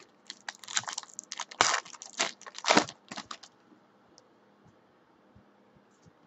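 Foil wrapper of a basketball card pack being torn open and crinkled by hand, a quick string of crackles and rips that dies away a little past halfway, leaving only a few faint ticks of cards being handled.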